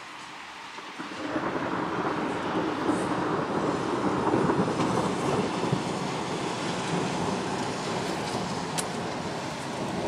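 Thunder: a long rolling rumble that swells about a second in and carries on without a break.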